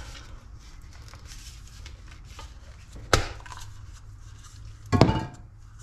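Two sharp knocks, about three and five seconds in, the second longer, as a brake caliper piston is worked into its bore with a new dust boot, over a low steady hum.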